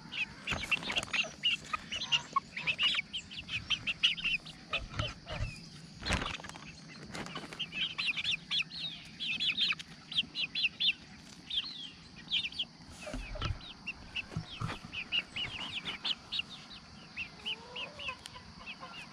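Young chickens peeping and clucking as they feed, short high chirps coming several times a second, with a few scattered knocks.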